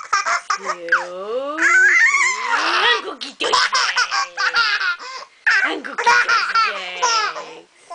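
Six-month-old baby babbling and laughing, his voice gliding up and down in pitch, with quick choppy runs of laughs through the middle.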